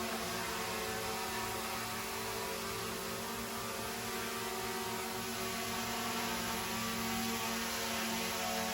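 DJI Mini 3 quadcopter drone hovering, its four small propellers and motors giving a steady high buzzing whir with a hum under it.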